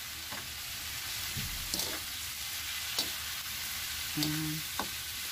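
Pork and kangkong stalks sizzling steadily in a hot pan with soy sauce and sugar just added, while a spatula clicks and scrapes against the pan a few times.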